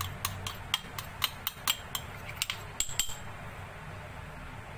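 Metal spoon tapping and scraping against a small plastic bowl to knock cornflour out, about four light clicks a second; the clicks stop about three seconds in, leaving a low hum.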